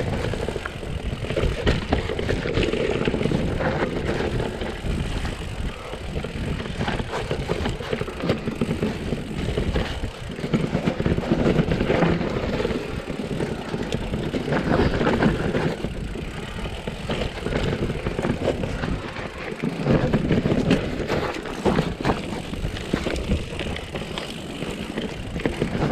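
Mountain bike descending a downhill trail at speed: tyres on dirt and the bike rattling and knocking over rough ground, with wind rushing on the action camera's microphone. The noise swells and dips with the terrain.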